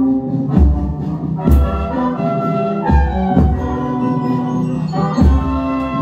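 Marching bass drum struck with padded mallets, deep beats about once a second, playing along with recorded brass-band music with sustained horn notes.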